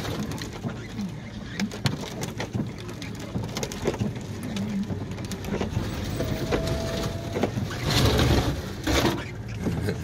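Vehicle cab while driving through deep snow: a steady low engine and road rumble, with snow-laden tree branches and snow brushing and scraping against the windshield, and scattered knocks and crunches. A brief squeak comes about six seconds in, and a louder rush of scraping follows near the end.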